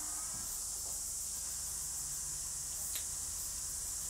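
Steady high-pitched hiss of recording background noise over a faint low hum, with one faint click about three seconds in.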